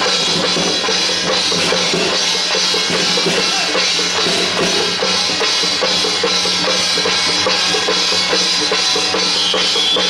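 Loud Taiwanese temple-procession music, drums and other percussion playing steadily with no break.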